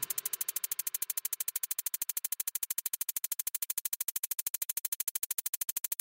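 Electronic synthesizer pulsing in a rapid, perfectly even rhythm of about twelve pulses a second, with no cooking sounds coming through.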